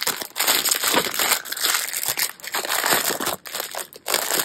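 Clear plastic bag holding packets of diamond painting drills crinkling as it is handled, an uneven run of crinkles that swell and fade.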